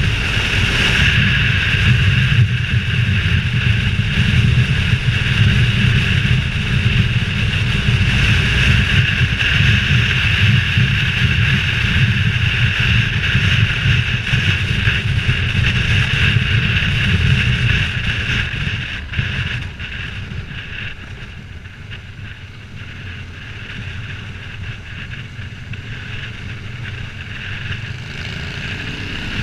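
Wind rushing over a helmet-mounted camera on a moving motorcycle, with the bike's engine running underneath at road speed. About two-thirds of the way through the noise drops as the bike slows, then slowly builds again.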